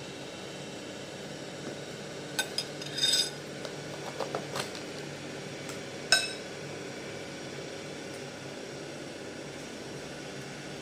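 A metal spoon clinking and scraping against a bowl and dish while eating: a quick run of clinks about two and a half seconds in, softer taps a little later, and one ringing clink about six seconds in, over a steady background noise.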